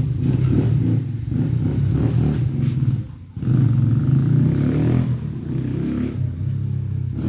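Motorbike engine running loud as it goes by, with a brief drop in the engine sound about three seconds in before it comes back.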